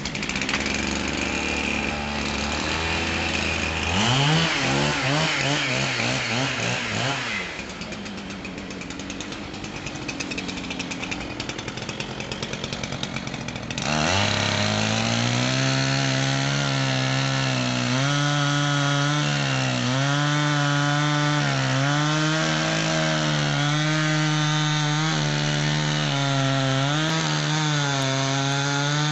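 Two-stroke chainsaw running and cutting wood. Its engine revs up about four seconds in. From about halfway it runs loud and steady at high revs, its pitch dipping and recovering as the chain bites.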